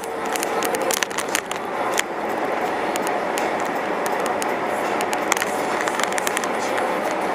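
Steady road and tyre noise inside a moving car's cabin, with scattered sharp clicks and crackles.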